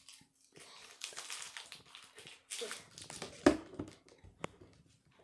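Rustling and crinkling of a Lego Ninjago trading-card packet being opened and the cards handled. About three and a half seconds in there is a brief loud vocal sound, then a single sharp click.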